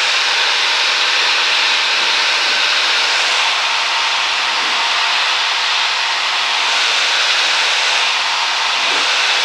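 Steady hiss of a light airplane's in-flight cabin noise heard through the headset and intercom audio feed, even and unbroken with no voices.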